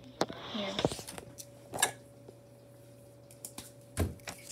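Handling of a folded paper envelope: rustling and a few light clicks and knocks, with a short burst near two seconds and a soft thump about four seconds in, over a faint steady hum.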